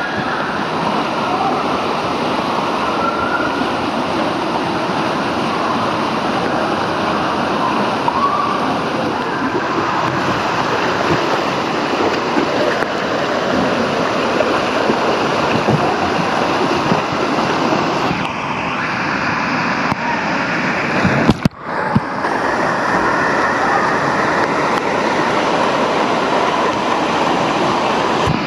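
Rushing, churning water in a Klarer Crazy River wild-water slide, sloshing and splashing close around the rider. A little over twenty seconds in, the sound briefly drops out between a couple of sharp knocks.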